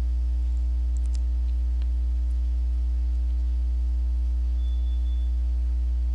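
Steady low hum with a few faint steady higher tones above it, and a couple of faint clicks about a second in.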